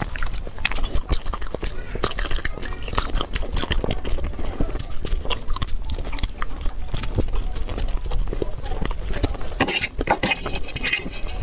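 Close-miked eating: continuous wet chewing and mouth smacking with many short clicks, getting louder about ten seconds in.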